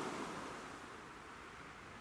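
Ocean waves: the rush of a breaking wave dies away as the surf washes back.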